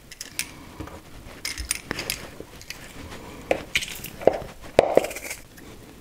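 A metal garlic press being worked over a plastic bowl as garlic cloves are crushed: scattered light clicks, clinks and knocks, with a few short squeaky notes partway through.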